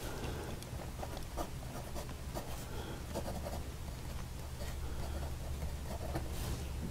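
Medium nib of a PenBBS 491 fountain pen writing on grid paper: faint scratching strokes and small ticks as the letters are formed, over a steady low hum.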